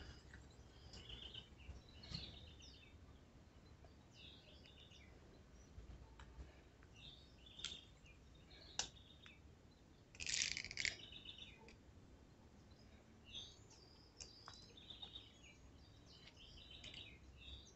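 Small birds chirping faintly in short, rapid trilled phrases that recur every second or two, with one louder phrase about ten seconds in.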